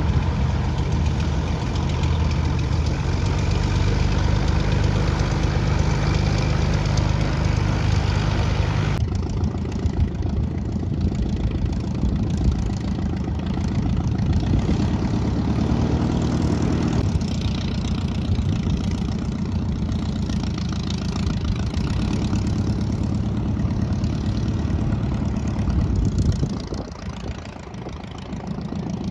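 Light propeller airplane's piston engine running steadily at idle. The sound changes abruptly about nine seconds in and dips briefly near the end.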